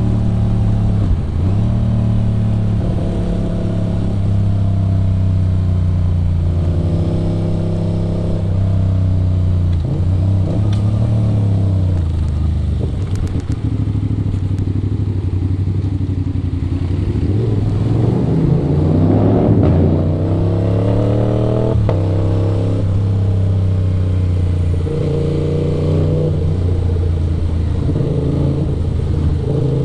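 Aprilia RS 660's parallel-twin engine under way, its pitch climbing and dropping repeatedly through the gears. A hard run up in revs comes about two-thirds through, with sharp drops at the shifts.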